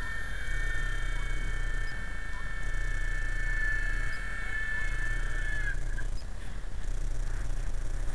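Small electric RC helicopter's motor and rotors whining at a steady high pitch, then winding down and stopping about six seconds in.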